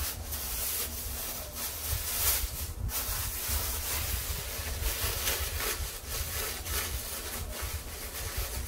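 Empty plastic bags crinkling and rustling as they are pushed down into a bucket as filler, a continuous rustle with irregular louder crackles.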